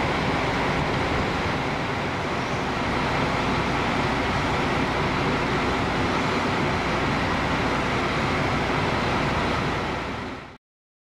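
Steady vehicle and road noise that fades and then cuts off about ten and a half seconds in.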